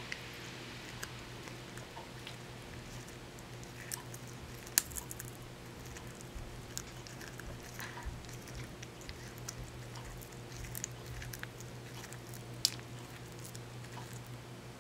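A cat chewing and biting a crunchy treat held in a hand: scattered small crunches and clicks of its teeth, two of them sharper than the rest.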